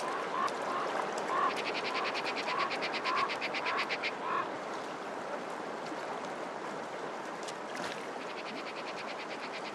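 Crows calling: short repeated calls about twice a second, with a fast rattling call for a couple of seconds in the middle. The calls stop about halfway through, leaving a steady outdoor hiss.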